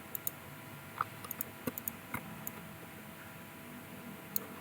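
Irregular clicks and taps of a computer keyboard and mouse, about a dozen, spread unevenly and clustered in the first half.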